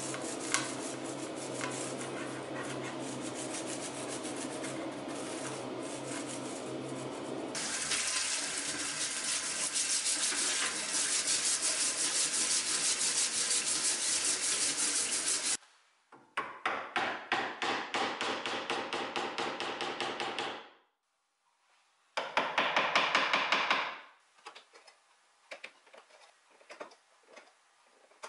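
A brush rubbing paint stripper into carved wooden moldings. Then a brush scrubs a molding under a running tap in a steel sink, a louder hiss of water and fast strokes, followed by two more bouts of rhythmic scrubbing. Near the end come faint, scattered clicks of a carving gouge cutting into wood.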